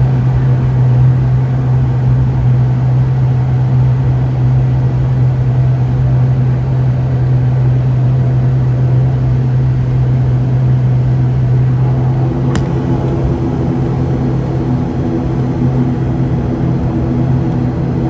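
ATR 72-600's twin turboprop engines and six-bladed propellers running, heard from inside the cabin as a loud, steady low drone. About twelve seconds in the drone's pitch changes, with higher tones coming in, and a single sharp click sounds.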